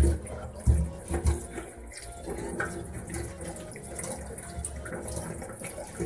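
Tap water running and splashing into a stainless-steel sink as beetroots are rinsed under it by hand, a steady hiss. Three dull knocks sound in the first second and a half.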